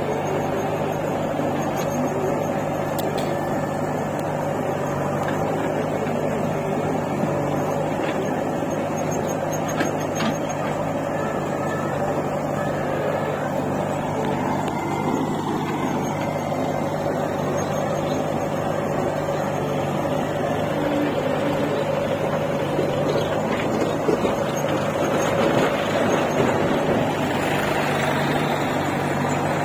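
Diesel engines of a JCB 3DX backhoe loader and a John Deere tractor running steadily with a low hum, no revving, rising slightly near the end.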